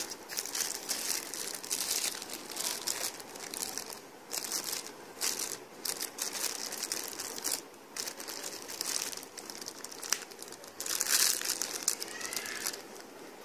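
Clear plastic bags crinkling as hands handle the bagged car speakers, in uneven bursts that are loudest near the end.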